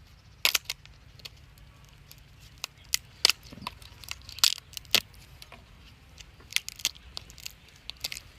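Irregular sharp clicks and cracks, some louder than others, scattered through the whole stretch: a cooked lobster's shell being cracked and pulled apart by hand to get at the meat.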